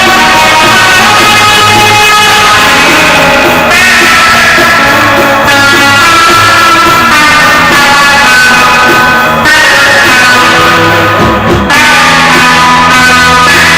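Rock band recording with guitars, loud and dense, the chords shifting every couple of seconds.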